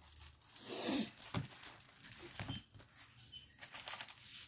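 Clear plastic sleeve rustling and crinkling as a diamond-painting canvas is handled and folded, loudest about a second in.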